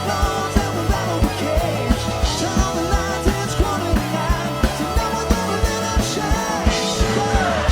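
Live country-rock band playing, with a steady kick-drum beat of about three hits a second under bass and guitar, and a lead line bending up and down in pitch.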